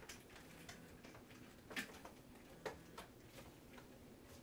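A few faint, sharp plastic clicks from vertical blind vanes and their carriers turning as the control is pulled to close and open the blinds, the clearest a little under two seconds in and two more near three seconds.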